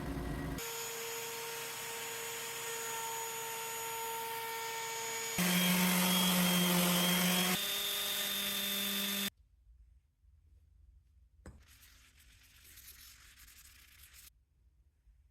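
Woodworking power tools running on cherry boards in a string of short clips, each a steady motor whine over cutting noise that changes abruptly from one tool sound to the next. About nine seconds in the machine noise cuts off, leaving only faint shop sound.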